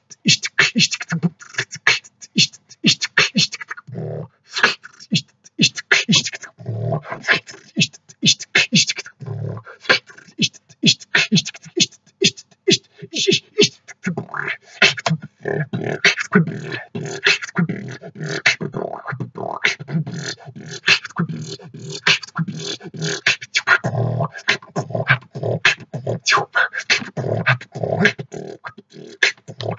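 Freestyle beatboxing by one person: a fast, dense stream of mouth-made drum sounds, with sharp clicks and snare-like hits over deep bass beats, recorded through a poor-quality microphone.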